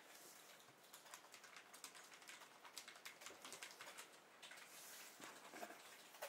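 Faint typing on a keyboard: rapid, irregular clicks.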